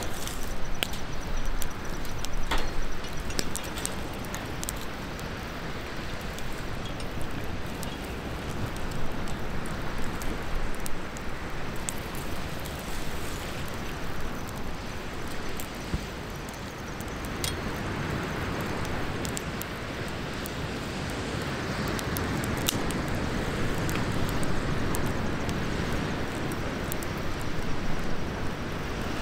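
Wood campfire in a metal fire stand crackling, with scattered sharp pops, over a steady rushing noise that grows louder from about halfway through.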